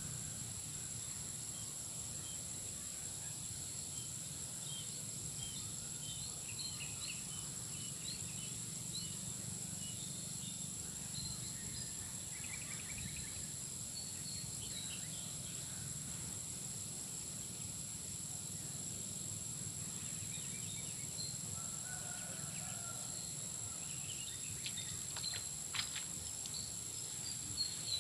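Outdoor ambience: a steady high-pitched insect drone with scattered short bird chirps, and a few sharp clicks near the end.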